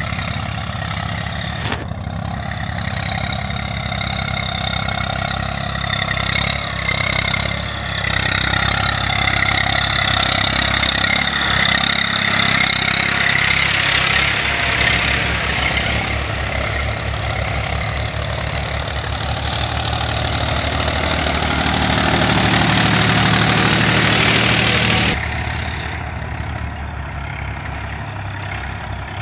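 Diesel engines of a Mahindra 275 DI and an Eicher 380 tractor running steadily under load while pulling cultivators through dry soil. The engine sound shifts abruptly a few times and drops sharply about 25 seconds in.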